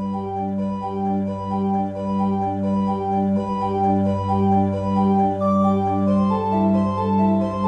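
Background music played on an organ-like keyboard: a steady low drone under a repeating pattern of sustained notes, about two a second, with higher notes joining about six seconds in.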